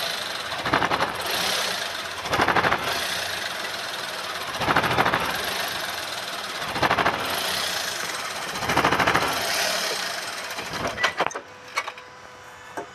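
Maruti Suzuki Celerio engine running under load in first gear against the brake, with a rattling judder that swells about every two seconds. The vibration comes from a damaged engine mount, as the mechanic concludes. Near the end the engine noise dies away, leaving a few clicks.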